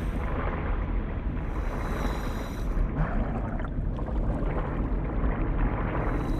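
A steady, dense rumbling noise with no clear rhythm or strokes.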